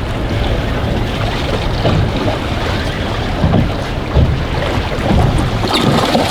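Stiff wind, about 15 knots, buffeting the microphone on a small fishing boat, with waves slapping the hull; a brief sharper sound comes near the end.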